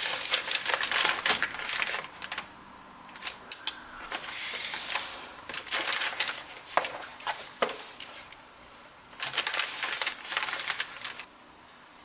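Packaging being handled during an unboxing: a run of light clicks and taps with rustling, a longer rustle about four seconds in and another burst near ten seconds, stopping shortly before the end.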